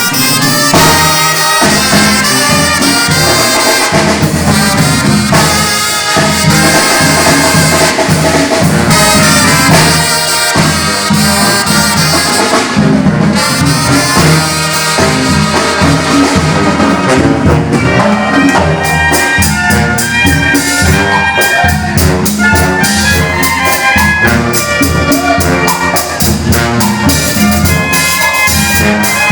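Mexican banda brass band playing an upbeat song: trumpets and trombones carrying the melody over a steady drum beat, which grows sharper and more insistent from about halfway through.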